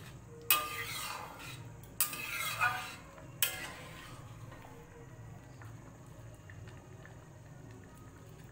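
Steel ladle stirring a thick pea-and-potato curry in a metal pot, scraping and clinking against the pot four times in the first few seconds, then quieter stirring.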